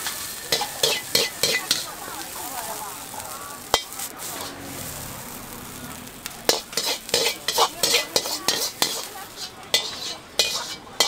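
Metal wok ladle scraping and clanking against a wok as fried rice is stirred and scooped out, with frying sizzle underneath. There are clusters of sharp clanks early on, a single sharp knock near four seconds, and rapid clanking again from about six seconds to the end.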